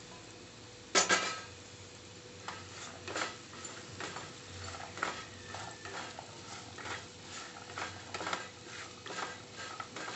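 Wooden spatula stirring chopped okra in a nonstick frying pan: a sharp knock against the pan about a second in, then repeated scraping and tapping strokes, with hot oil sizzling faintly underneath.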